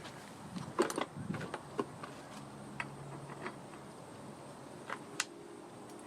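Scattered light metallic clicks and clinks of a nut and hand tools being handled, with a cluster of clicks about a second in and a sharp single click about five seconds in.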